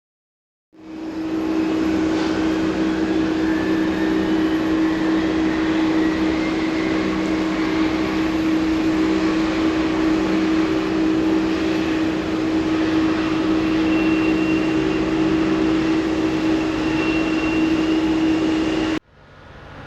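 Boeing 787 turbofan (GEnx or Trent 1000) being turned by its starter before light-off: a loud steady low hum with a faint higher whine rising slowly as the engine spools up. It cuts off abruptly about a second before the end, giving way to a quieter engine sound.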